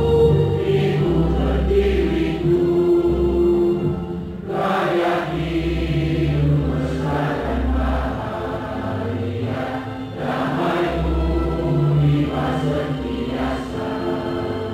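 A large crowd singing an anthem together in unison over a musical accompaniment with steady bass notes, each sung note held for about a second.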